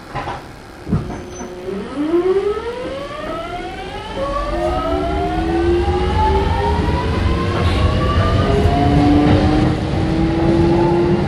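Kintetsu 1420 series electric train pulling away from a stop: a couple of thumps in the first second, then the VVVF inverter whine rises in several climbing tones that jump to new pitches as the train accelerates, over a rumble of wheels on rail that builds from about four seconds in.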